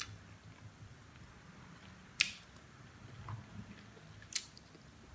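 Quiet eating of turkey neck meat: soft chewing with three short, sharp smacking clicks about two seconds apart.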